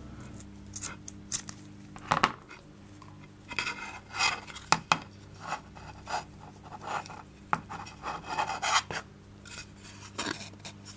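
Paracord being knotted by hand on a wooden plaque: rustling and rubbing of the cord, with scattered sharp clicks and knocks from the plaque and tools on the cutting mat.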